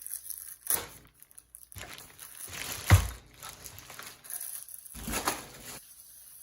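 Cardboard and plastic packaging rustling and crinkling in several bursts as a robot vacuum is pulled out of a tightly packed box, with a heavy thump about three seconds in.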